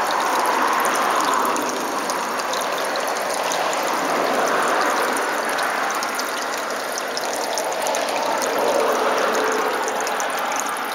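Shallow stream water running over rocks: a steady rush with a fine crackle of small clicks on top.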